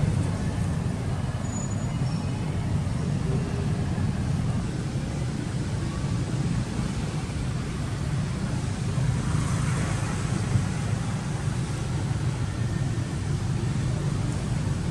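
Steady low rumble of outdoor background noise, with a brief faint rustle about two thirds of the way in.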